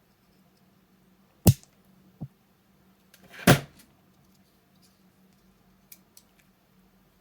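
Two sharp knocks about two seconds apart, the second after a short scrape, with a lighter tap between them and a few faint clicks near the end: tools and small parts being handled and set down on a workbench.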